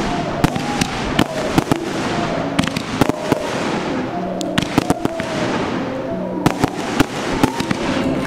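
Fireworks going off: a rapid, irregular series of sharp bangs and crackles from aerial bursts.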